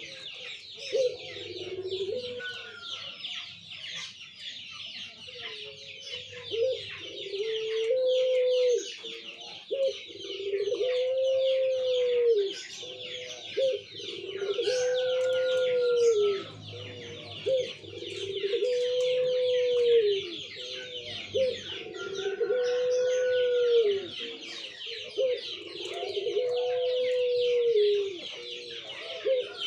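A puter pelung, a domestic ring dove bred in Indonesia for its long coo, cooing over and over: each coo is one long arching note held and dropping at the end, repeated about every three seconds. Behind it runs a steady high-pitched chirring.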